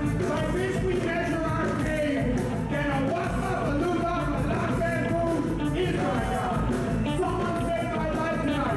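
Rock band playing live: electric guitars, bass guitar and drum kit, with a man singing into a microphone over the band.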